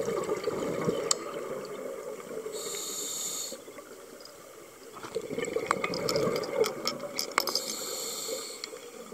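Scuba diver breathing through a regulator underwater: two exhalations of gurgling bubbles, each followed by a short hiss of inhaled air, about three seconds in and again near the end.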